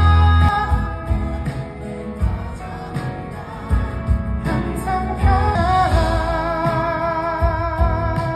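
Live pop ballad from a concert: a male vocalist sings long held notes with vibrato over piano, drums and guitar, with the audience singing along, heard from within the crowd.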